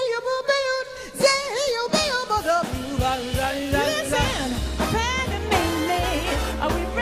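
Two female vocalists scat-singing wordless, sliding lines over a jazz band. The band's bass comes in strongly partway through.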